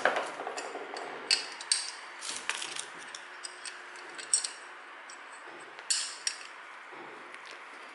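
Small metallic clicks and clinks, scattered and irregular, as a mixer tap's brass valve parts are handled and turned by hand; the valve turns normally.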